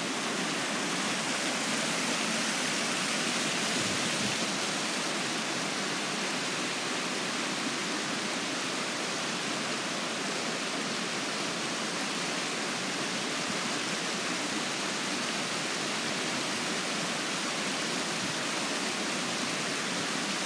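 A brook running, a steady, even rush of flowing water.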